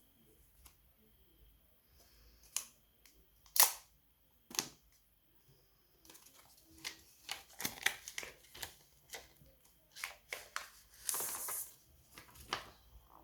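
Hands handling a phone's retail box and packaging: a few sharp taps and clicks, then a busy run of small clicks and rustling with a short scraping slide near the end.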